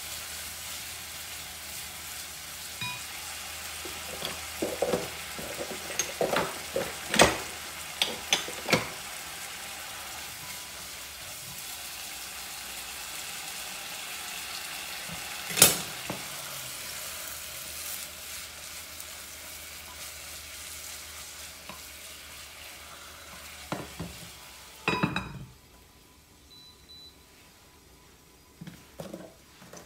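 Chicken pieces sizzling in oil in a wok, stirred with a wooden spatula that knocks against the pan several times. Near the end a lid clatters onto the wok and the sizzling becomes much quieter.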